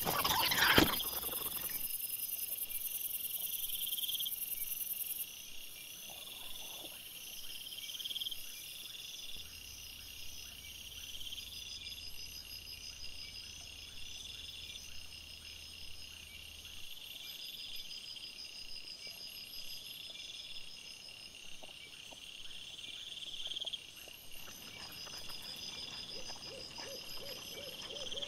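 Night insects chirping in a regular, repeating pattern, with one loud short cry about a second in.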